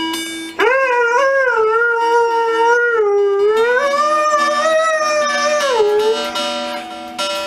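Doberman howling along to an acoustic guitar: one long howl starting about half a second in, dipping in pitch in the middle and rising again, then falling away about six seconds in, while held guitar notes ring underneath.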